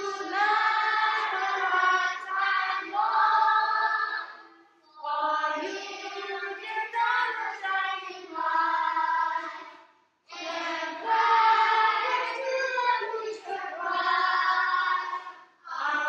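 A group of young children singing together in unison, in phrases with short breaks about five and ten seconds in.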